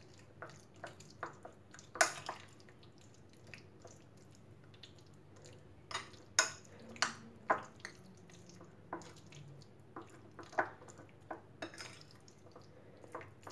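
Metal spoon mixing chicken pieces in a wet yogurt-and-spice marinade in a bowl: irregular light clicks and taps of the spoon against the bowl, a few of them sharper.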